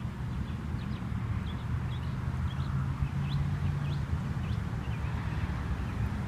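Outdoor ambience: a steady low hum with many short, high chirps scattered through it.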